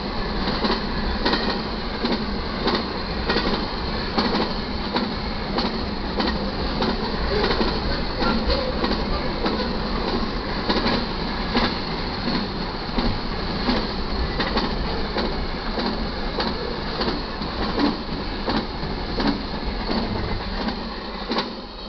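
Double-stack container freight train rolling past at a grade crossing: a steady rumble of steel wheels on rail with many irregular clicks and clacks. The sound drops away near the end as the last car passes.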